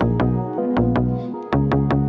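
Background rap music, a beat with deep bass notes and sharp, regular percussion hits, no vocals in this stretch.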